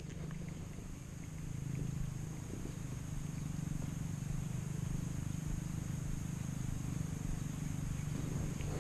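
Abu Garcia Black Max baitcasting reel cranked steadily to retrieve a lure: a low, even whirring purr that grows a little louder about a second and a half in.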